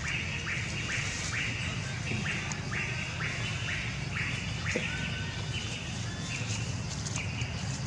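A buzzy animal call, each about half a second long, repeated in a steady rhythm about once a second.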